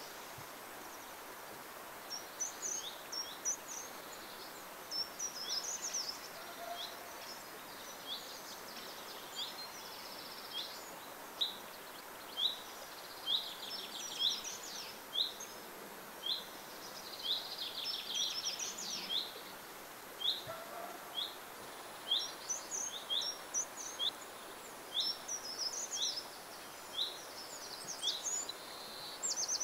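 Small birds calling and singing. One repeats a short, high call about once a second while bursts of quicker, more varied song come in between, over a steady background hiss.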